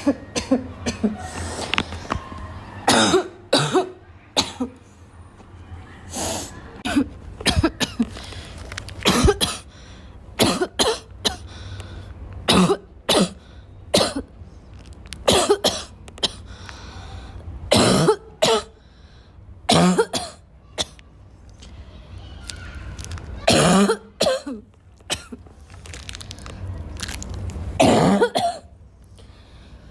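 A girl coughing over and over, in sharp coughs that come singly or in quick runs of two or three, every second or two.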